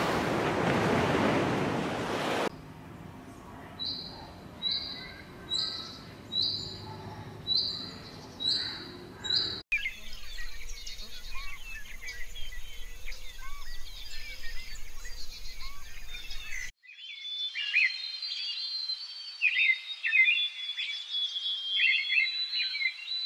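Surf washing on a beach for the first couple of seconds. Then seven short, high calls evenly spaced about a second apart, followed by dense bird chirping and a different mix of bird calls.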